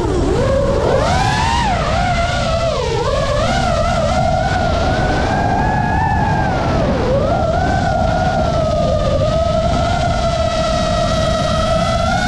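FPV freestyle quadcopter's brushless motors whining. The pitch swoops up and down with the throttle, dips sharply twice, then holds a steadier, higher whine over a low rush of wind.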